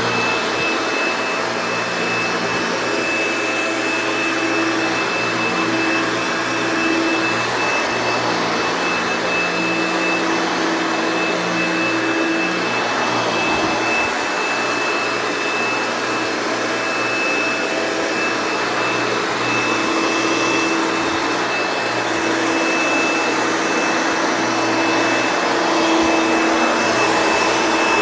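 1964 Hoover Dial-A-Matic upright vacuum cleaner, a clean-air design, running steadily with a constant high whine.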